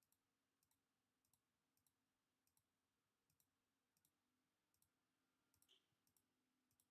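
Near silence, with only very faint computer-mouse clicks as the ebook preview is paged through.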